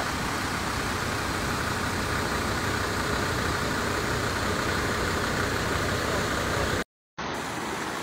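Steady rushing noise of muddy floodwater flowing over rocks through a wadi, cutting out briefly about seven seconds in.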